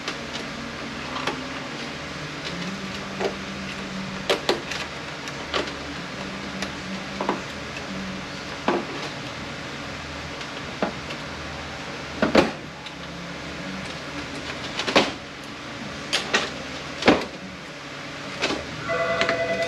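Metal transmission parts clinking and knocking as the clutch pack of a Mercedes 722.118 automatic transmission is taken apart by hand: a dozen or so separate sharp knocks, a few of them louder in the second half, over a steady fan hum.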